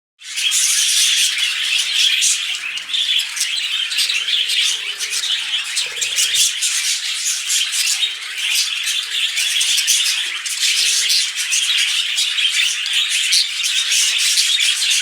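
Male budgerigars chattering and warbling without a break, a dense run of quick chirps, squawks and clicks. Budgie males warble like this when courting.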